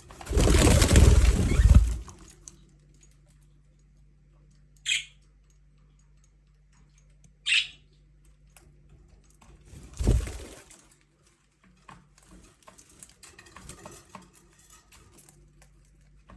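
Budgerigars giving a few short, separate chirps, about five and seven seconds in and again at the very end, with faint scratching between them. A loud rustling burst fills the first two seconds, and a thump comes about ten seconds in.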